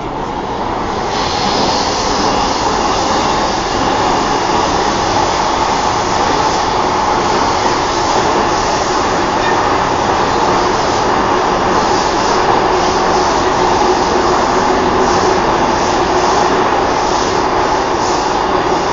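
Singapore MRT train running, heard from inside the carriage: a steady rumble and rail noise that grows louder over the first couple of seconds as the train gathers speed, then holds steady.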